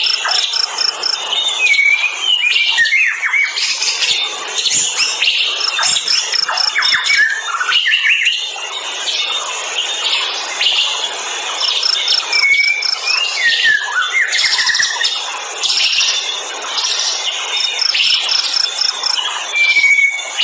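A busy chorus of forest birds chirping, trilling and calling over an even background hiss. A row of quick high notes and a few whistled glides come back about every six seconds.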